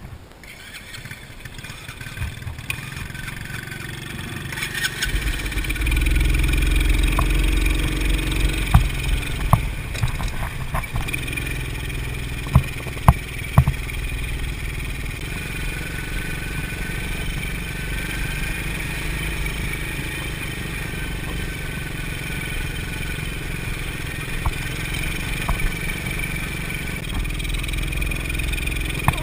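TaoTao Coolster 125 ATV's small single-cylinder four-stroke engine running as it is ridden along a rough dirt trail. It builds up over the first several seconds as it gets under way, then holds a steady pace. A few sharp knocks from the bumpy track come about a third to halfway in.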